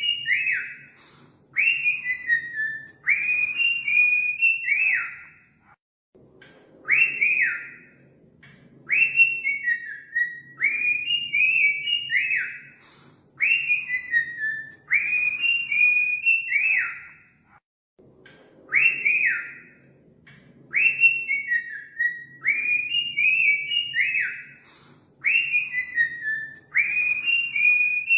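Cockatiel whistling its song: a run of short rising-and-falling whistled notes in quick phrases. The song breaks off briefly about every twelve seconds and starts over.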